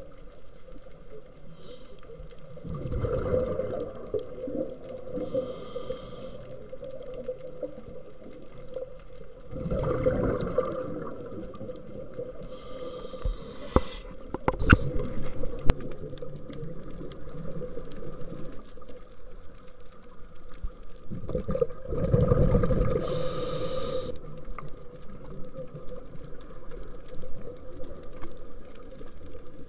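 Scuba diver's regulator breathing underwater, recorded through the camera housing: three loud rushes of exhaled bubbles, about 3, 10 and 22 seconds in, with shorter hissing inhalations between them. A few sharp clicks come around the middle.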